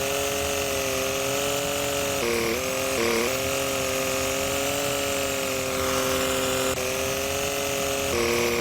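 Truck engine running while the truck is backed up, with a steady whine that steps up and down in pitch a few times.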